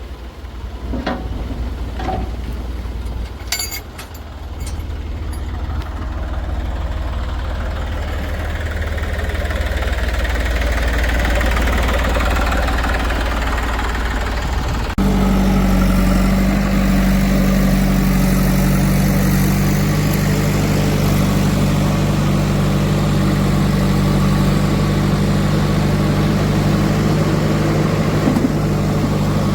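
Heavy diesel machinery running. A few sharp clanks come in the first seconds, and the engine noise builds. About halfway through, the sound changes abruptly to a steady, low diesel engine running at constant speed.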